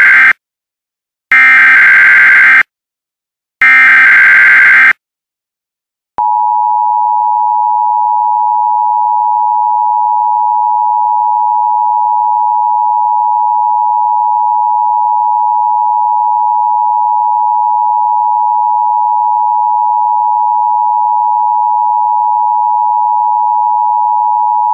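Emergency Alert System digital header: the end of one burst of buzzy, warbling data and two more identical bursts, each about a second long, about two and a half seconds apart. After a short silence, the EAS two-tone attention signal starts about six seconds in and holds as one loud, steady, slightly beating two-pitch tone.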